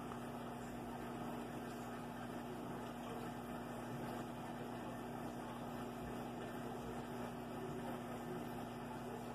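Aquarium equipment running: a steady low hum with an even hiss under it.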